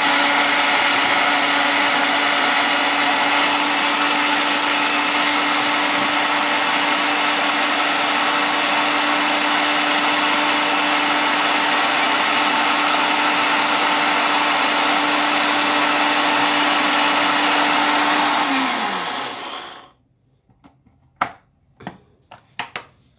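Electric grinder's motor running steadily at high speed as it grinds nigella (black) seeds to powder. It winds down about nineteen seconds in. A few sharp clicks follow.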